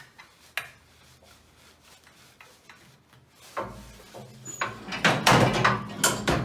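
Small clicks from the cylinder's hose fitting, then the metal door of an SCBA air-bottle fill station's chamber being pulled shut, with scraping and knocking in the last second and a half, the loudest part. A low hum comes in about three and a half seconds in.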